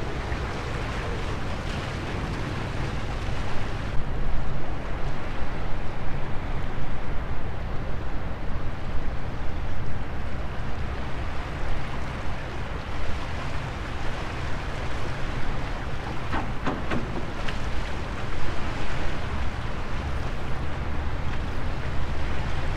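Wind buffeting the microphone over small waves washing against the rocks of a jetty, getting gustier about four seconds in. A short cluster of clicks comes about two-thirds of the way through.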